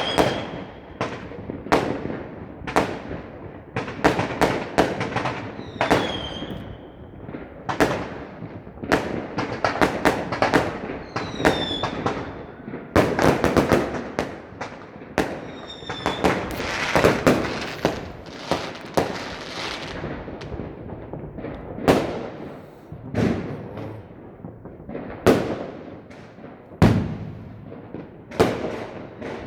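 Fireworks going off in a continuous barrage of sharp bangs and crackles, thickest about halfway through, with a few short falling whistles among them.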